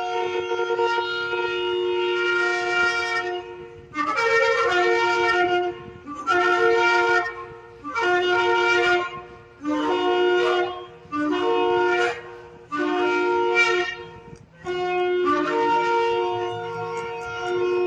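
Shofar blown in a sequence of calls: a long blast, then six shorter blasts each stepping up from a lower to a higher note, then another long blast starting about fifteen seconds in.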